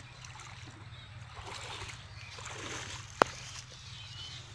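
Water sloshing and splashing as a person wades out of a shallow weedy pond onto the bank, with one sharp click a little over three seconds in.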